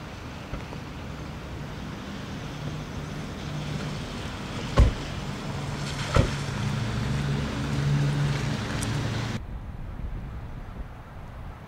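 A GMC SUV's engine running with steady wind on the microphone; two car doors slam shut, about five and six seconds in. Near the end the sound cuts to quieter, duller outdoor ambience.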